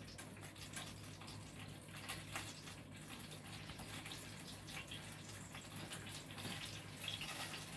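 Faint crackling and bubbling from a pan of butter, canned milk and water heating on an electric stove, over a steady low hum.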